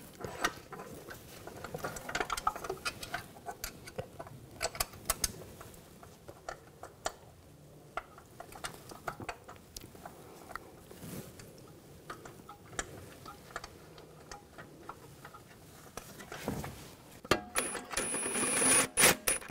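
Light metal clicks and taps as CV axle flange bolts are fitted by hand. Near the end a socket ratchet starts clicking rapidly as it runs a bolt in.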